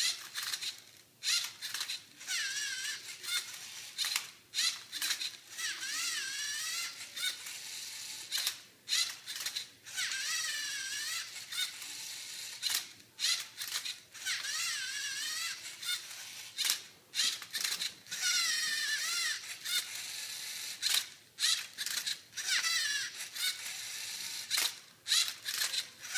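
Lego Mindstorms Rubik's Cube solver's electric motors and plastic gears whining in repeated short bursts as the robot turns and flips the cube, the pitch gliding up and down with each move, with clicks and brief pauses between moves.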